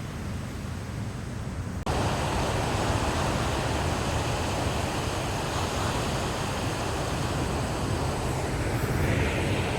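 Steady outdoor wind and surf noise, a rushing hiss with a low rumble. It jumps suddenly louder about two seconds in.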